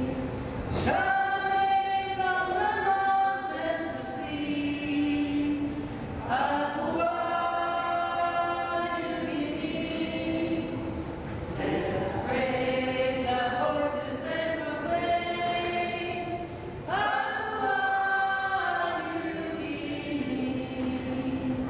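Voices singing unaccompanied in long held phrases of about four to five seconds, with short breaks for breath between them.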